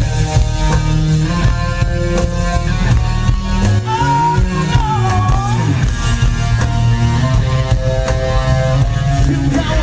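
A rock band playing live: held electric guitar chords over bass and drums, with a lead line that wavers up and down about halfway through.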